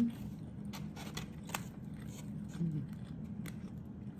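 Close-up chewing of fried rice, with sharp wet mouth clicks scattered throughout. Two short hiccups are heard, one at the start and one about two and a half seconds in.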